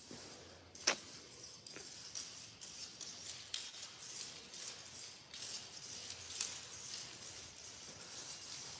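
Footsteps crunching and scraping over dry leaves and grit on a concrete floor, in uneven strokes, with one sharp click about a second in.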